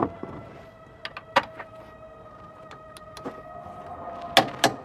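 Torque wrench on the spring eye bolt of a Ford F53 front suspension: scattered sharp clicks as it is worked, with two loud clicks close together near the end as the bolt is brought up to about 130 foot-pounds. A steady high motor whine runs underneath.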